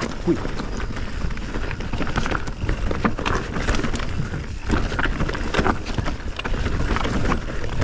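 Canyon Spectral 29 mountain bike riding fast down a dry dirt trail: tyres rolling over leaves and earth, with frequent short rattles and knocks from the bike over roots and bumps, and wind rumble on the chest-mounted camera.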